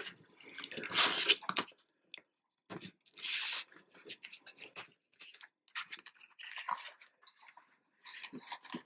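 Stiff black card album pages rustling and scraping as they are handled and slid onto the album's binding posts, in a series of short papery scrapes, the loudest about a second in and a longer one about three seconds in.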